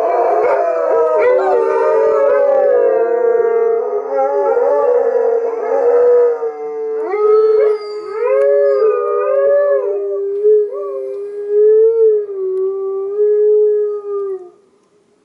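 A pack of Alaskan malamutes howling together, many voices at once at first. About halfway through, the chorus thins to one or two long wavering howls, which stop shortly before the end.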